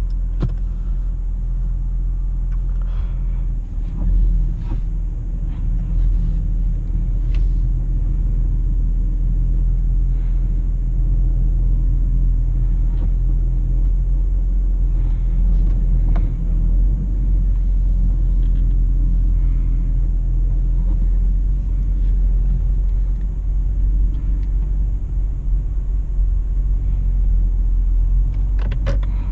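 Steady low rumble of a 2008 BMW 328xi being driven, its 3.0-litre straight-six and road noise together, with a few faint clicks here and there.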